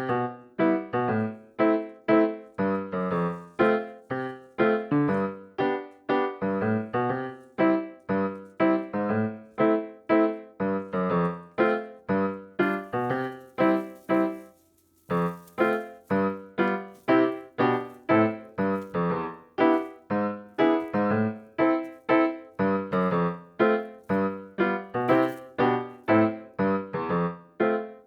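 Background music: a keyboard playing a steady, even run of notes, about two a second, with a brief pause about halfway through.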